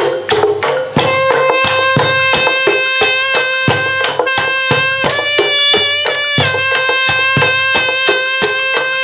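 Live improvised percussion ensemble playing a steady pattern of struck taps, joined about a second in by a held, buzzy pitched tone that shifts pitch a couple of times while the beating goes on.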